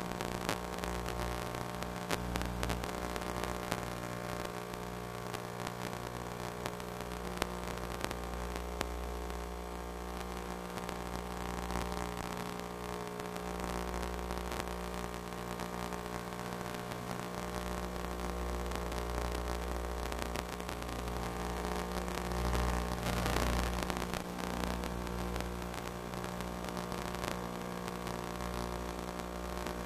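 Steady electrical hum, several constant tones, over a bed of static hiss.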